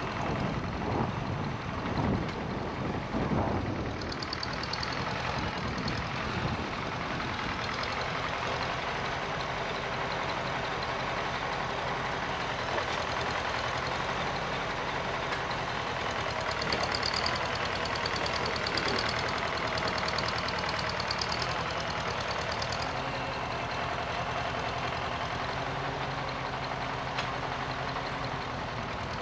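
Farmall Super C tractor's four-cylinder engine running steadily as it drags loose dirt back and forth. Wind rumbles on the microphone in the first few seconds.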